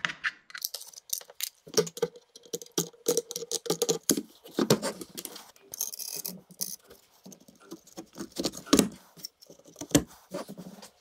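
Hands fitting bolts, washers and nuts through plywood spacers onto a steel chainsaw bar: a run of light metallic clicks, taps and rattles with wooden knocks, uneven and irregular.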